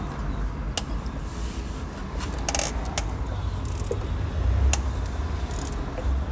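Metal hand tools and loose bolts clinking and scraping, with a few sharp clinks, over a steady low rumble.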